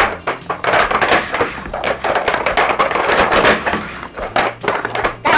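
Plastic sport-stacking cups clacking and tapping on a wooden table as they are rapidly stacked up into a six-cup pyramid and collapsed back down, a fast, uneven run of sharp clacks.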